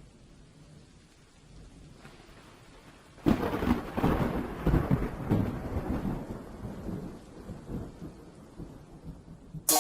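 Thunderclap in a rainstorm: faint low rumbling, then a sudden loud crack about three seconds in that rolls away over the next several seconds.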